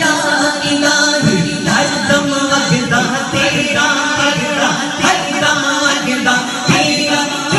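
A man singing a devotional Punjabi naat through a microphone and sound system, a continuous melodic vocal line.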